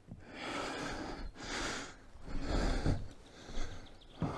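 A man breathing hard close to the microphone: three long breathy hisses in the first three seconds.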